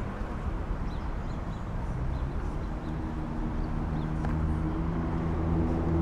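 Street traffic noise on a city avenue, with a vehicle's engine hum coming in about halfway and growing louder. A few faint, short high chirps sound in the first part.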